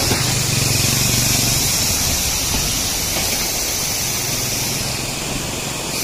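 River water rushing through a barrage gate and spilling over its steel beam into churning white water: a loud, steady rush.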